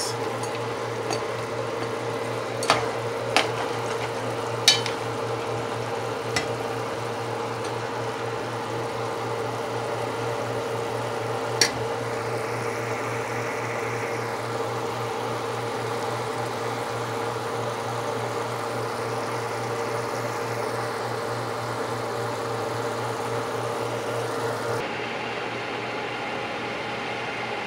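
Pot of curry goat simmering on a gas stove under a steady mechanical hum, with a few sharp clinks of a metal ladle against the pot in the first dozen seconds.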